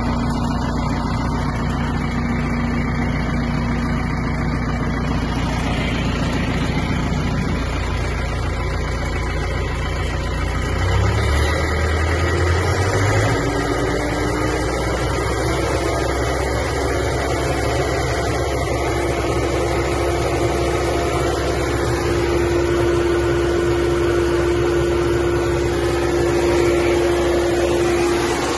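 Massey Ferguson 6712 tractor's diesel engine running steadily; about eleven seconds in its speed rises and then holds higher, and a steady higher-pitched whine joins in for the last few seconds.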